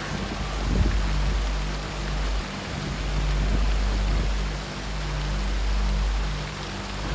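Shallow mountain river rushing over stones and pebbles: a steady hiss of flowing water, with an uneven low rumble beneath it.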